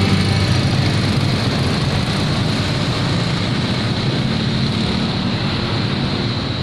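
Mitsubishi Fuso truck's 6D22 straight-six diesel engine running steadily: a dense low rumble with a thin, steady high whine above it.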